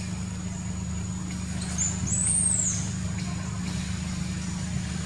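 Steady low hum, with a brief high squeal that rises and falls about two seconds in.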